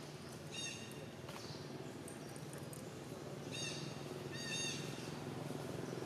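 Macaque's short, high-pitched calls, three of them, each rising and falling in pitch: one about half a second in and two close together past the middle. A steady low hum runs underneath.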